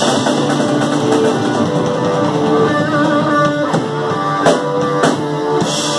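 Live rock band playing with electric and acoustic guitars, bass and drums, in a thrash-metal and bluegrass blend. The guitars hold notes, one of them wavering, and two sharp accents come near the end.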